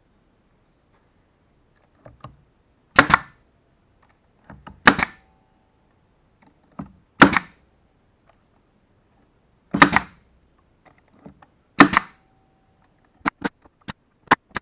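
Pin nailer firing pins into the corners of a wooden fixture: five sharp shots about two seconds apart, with softer knocks of the tool being placed between them and a quick run of light clicks near the end.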